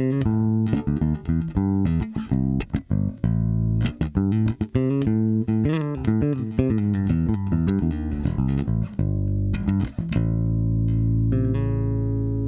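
Spector EuroBolt 4 electric bass with Aguilar PJ pickups, plucked with the fingers: a quick run of notes, then a last note about ten seconds in that is left to ring and slowly fade.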